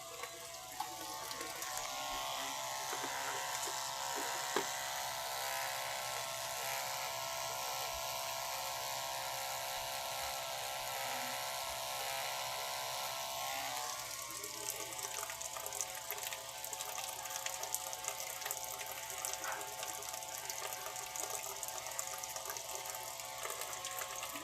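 Water running into a washing machine tub, with the steady whine of a small 12-volt booster pump motor feeding it; the sound turns slightly quieter and rougher about halfway through.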